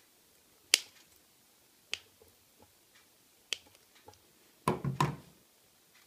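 A crimping tool's cutting blade snipping through the twisted-pair wire ends of a network cable: three sharp clicks about a second apart, then a short cluster of knocks and handling noise near the end.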